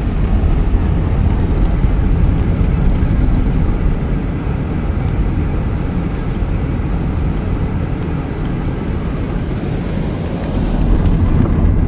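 Steady road noise inside a moving car driving on a snow-covered road: a low rumble from the engine and all-season tyres. It gets slightly louder and hissier near the end.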